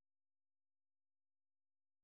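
Silence: the audio track is effectively empty.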